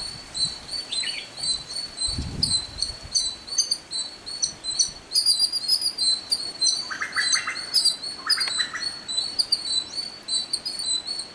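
Small birds chirping, short high chirps repeated several times a second, with two brief rattling calls about seven and eight and a half seconds in and a low thud about two seconds in.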